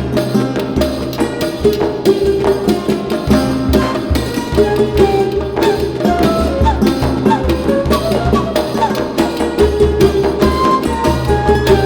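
Background music: a folk-style tune with a steady drum beat and a melody line over it.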